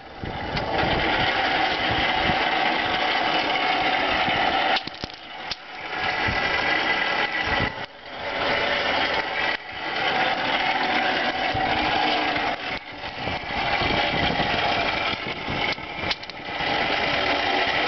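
Champion 400 hand-cranked forge blower whirring steadily as it is cranked, blowing air up through the tuyere into a coal fire. The whir drops away briefly several times as the cranking pauses, then picks up again.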